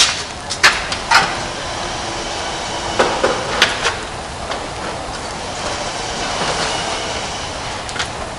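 Knocks and bumps of a built-in oven being handled and pushed into the opening of a timber housing unit, a few sharp knocks near the start, a couple around three seconds in and one near the end, over a steady hiss.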